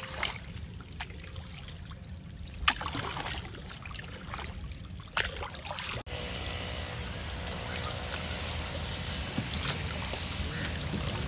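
Wooden paddles dipping and splashing as a canoe is paddled across calm water, in a few separate strokes. About six seconds in, a steadier wash of water takes over.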